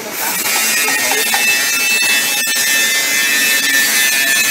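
Steady machine noise from a powered-up CNC milling machine: a constant hiss with a thin, steady high whine over it.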